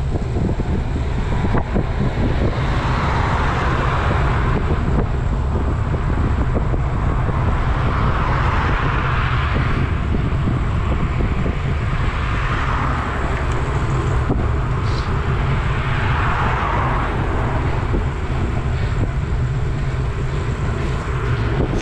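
Wind rumble on a bike-mounted camera's microphone, with tyre hiss on a wet road that swells and fades every few seconds.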